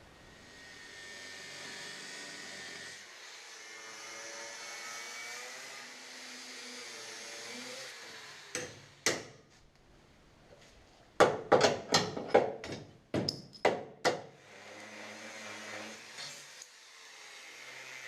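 Welder tack-welding: two short crackling bursts, then a quick run of about eight more a couple of seconds later, over a steady machine hum.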